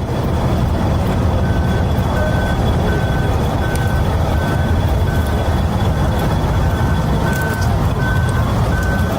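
Loud, steady low rumble with a short electronic warning beep repeating about every 0.7 seconds from about a second and a half in.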